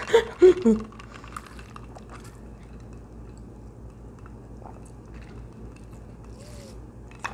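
A woman's voice trails off in the first second. Then comes a quiet stretch of room tone with a few faint small clicks and one soft, short hiss near the end as she sips a drink through a plastic straw.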